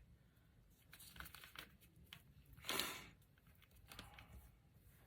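Faint rustling and light taps of paper being handled, with one louder paper rustle about three seconds in.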